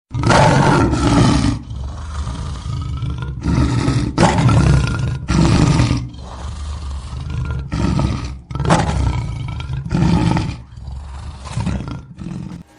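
Lion roaring: a series of deep, loud roars and grunts, roughly one a second, that stops just before the end.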